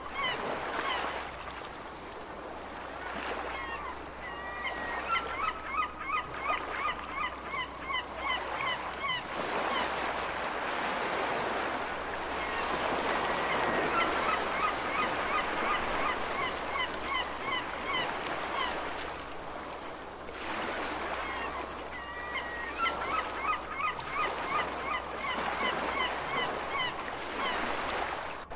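Seagulls calling in runs of quick repeated notes, about four a second, over a steady wash of ocean waves.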